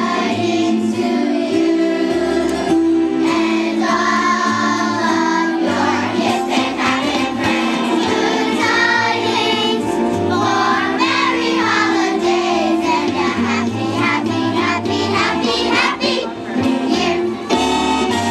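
Children's choir singing together with instrumental accompaniment.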